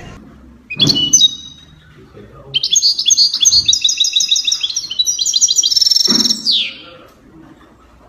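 A small caged songbird singing. A brief high chirp comes about a second in, then a fast run of bright chirping notes lasts about four seconds and ends in a falling note.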